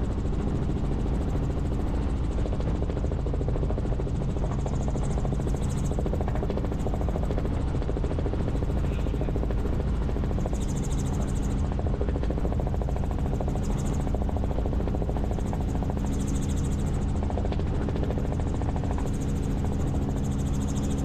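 Helicopter in flight: the engine and rotor running steadily with a constant droning tone.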